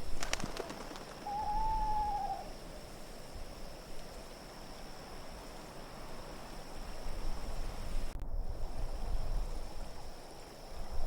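Howling winter wind as a steady haze of noise, with a single drawn-out owl hoot about a second in.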